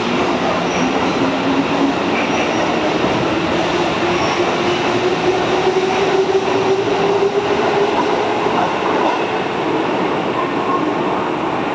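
Sanyo Electric Railway 5000 series electric train pulling out of an underground station: wheels rumbling and clattering along the rails, with a motor whine rising steadily in pitch as it accelerates away. The sound eases off slightly near the end as the train recedes down the tunnel.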